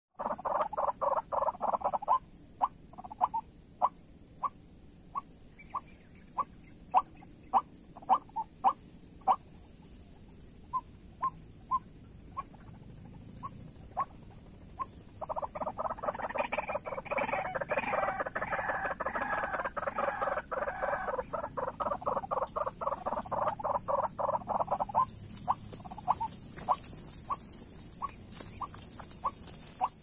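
White-breasted waterhens calling: a quick run of notes at the start, then single sharp notes about one or two a second, a dense fast stretch of calling from about halfway to near the end, then single notes again. A steady high whine runs behind them.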